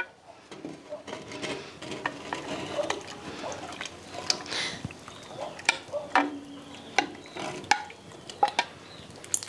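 A spatula scraping and clinking against an earthenware bowl as chunks of raw pork are scraped out into a clay pot of water, with irregular sharp knocks throughout.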